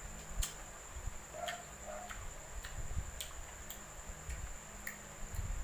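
Close-miked eating: crunchy bites and chewing of unripe green mango, heard as scattered sharp mouth clicks and soft crunches at an uneven pace.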